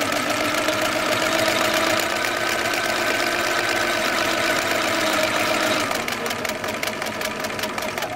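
Bernina 930 sewing machine running at speed, sewing a decorative stitch: a steady motor whine over the rapid rattle of the needle strokes. It eases off about six seconds in and stops near the end.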